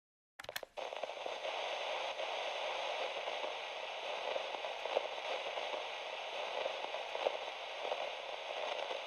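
Radio static: a couple of sharp clicks as the set comes on about half a second in, then steady hiss with scattered crackles.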